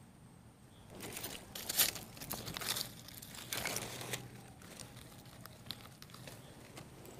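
Rustling and crinkling, loudest from about one to four seconds in, then a few faint clicks.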